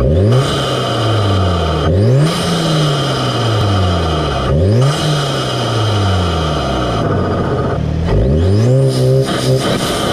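Audi S3's turbocharged 2.0-litre four-cylinder revved four times in quick blips, heard up close at the APR open carbon-fibre intake's cone filter. Each rev rises sharply and then falls slowly back, under a steady induction hiss and whoosh.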